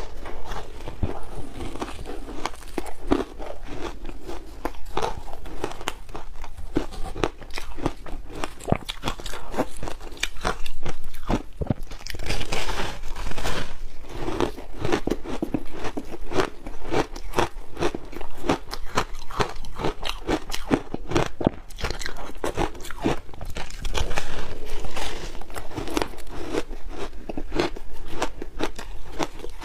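Close-miked crunching and chewing of frozen shaved-ice blocks coated in matcha and milk powder: crisp crunches follow one another quickly, without a pause.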